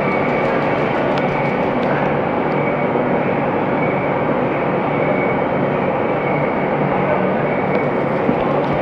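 110 mm-spindle CNC horizontal boring mill running, machining a large steel ring: a loud, steady mechanical noise with a faint high whine that comes and goes.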